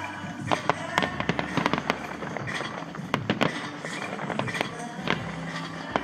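Fireworks display: shells bursting in an irregular run of sharp bangs and pops, with clusters of reports about a second in, around three seconds in, and near the end.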